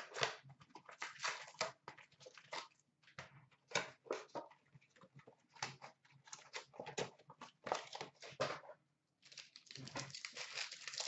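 Rustling and crinkling of a trading-card box and its packs being opened and handled, in many short irregular bursts with a brief pause just after nine seconds.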